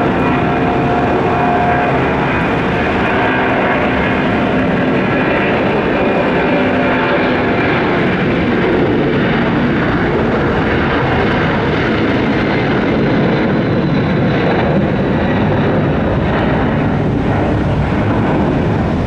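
Twin turbofan engines of a Boeing 767-200 freighter at take-off thrust: a loud, steady jet engine noise with faint whining tones above the rumble.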